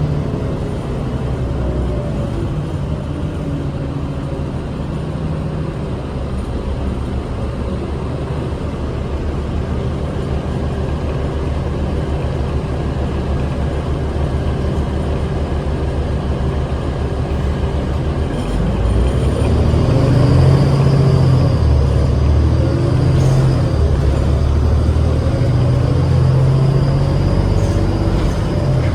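Inside a New Flyer D40LF diesel bus on the move: its Cummins ISL 8.9-litre six-cylinder diesel and ZF six-speed automatic running, with a drivetrain whine falling in pitch at the start. About two-thirds of the way in the engine grows louder under load, and a whine rises in pitch near the end as the bus picks up speed.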